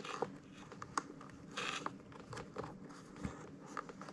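Faint handling sounds as a rubber drive belt is worked onto an Oreck upright vacuum's pulley and brush roll: scattered light clicks and knocks on the plastic housing, with a short rustle about a second and a half in.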